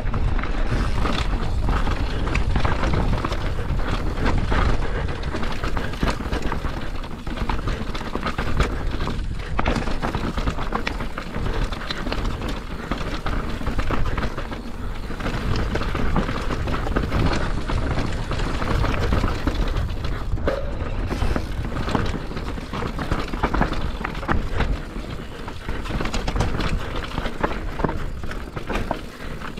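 A mountain bike descending a dirt trail, heard from a camera on the rider: wind buffeting the microphone, tyres rolling over dirt and roots, and the bike rattling with frequent knocks over bumps.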